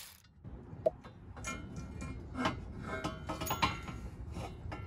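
Tubular turbo exhaust manifold clinking and knocking against the cylinder-head studs as it is worked off the engine by hand: an irregular run of metallic ticks and clinks, some leaving a brief ringing tone.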